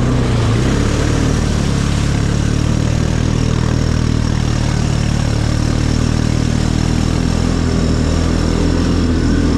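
Quad bike engine idling steadily.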